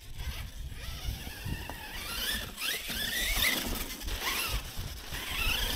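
Losi LMT RC monster truck's brushless electric motor whining on a 2S battery, rising and falling in pitch with the throttle from a couple of seconds in, over a low rumble.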